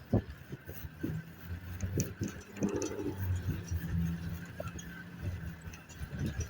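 An engine running low and steady, with scattered sharp knocks and clicks; the loudest knock comes just after the start.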